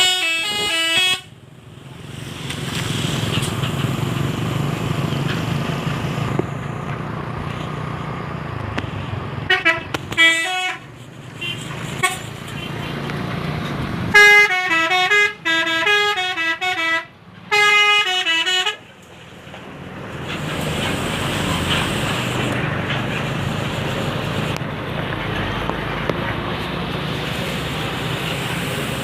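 Indonesian bus telolet horn playing short melodic tunes of stepping tones: briefly at the start, again about ten seconds in, and in a longer run from about 14 to 19 seconds. Between the tunes the bus engine and road traffic run steadily.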